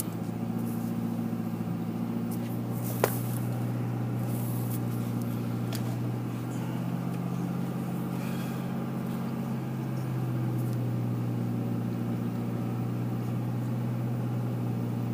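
A steady low hum, even in level throughout, with a single faint click about three seconds in.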